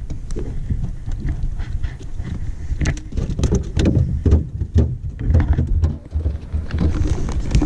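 Low, gusting rumble of wind and rubbing noise on the microphone, with scattered clicks and light knocks from handling.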